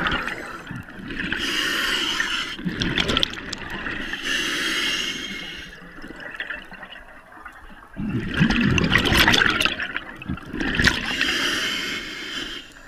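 Scuba diver breathing through a regulator underwater: hissing inhalations alternate with rushing, gurgling bursts of exhaled bubbles, about three breaths, with a quieter pause in the middle.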